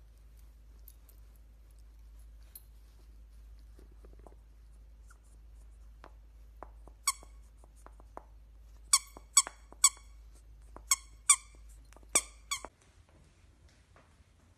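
Dachshund chewing a plush squeaky toy: soft gnawing clicks at first, then about seven short, high squeaks, several in quick succession, as the toy is squeezed in its jaws.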